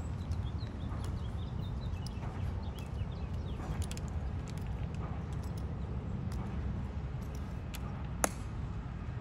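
Tomb Guard sentinel's measured footsteps on the marble plaza, his metal-plated shoes clicking softly, with one sharp heel click near the end as he halts and turns to face the tomb. A steady low rumble lies underneath.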